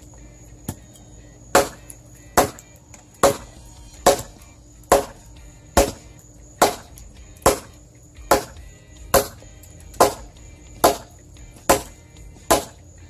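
A hatchet chopping into a dead log: about fourteen steady, evenly paced strokes a little under a second apart, beginning about a second and a half in.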